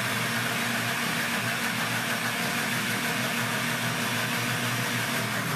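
Philco electric blender running steadily at speed, mixing a thin liquid cake batter of milk, oil, egg and sugar.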